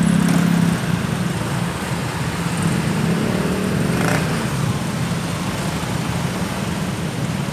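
Dense stop-and-go traffic of motor scooters and cars idling and creeping forward: a steady low engine drone with road noise, louder in the first second or so, and a brief sharper sound about four seconds in.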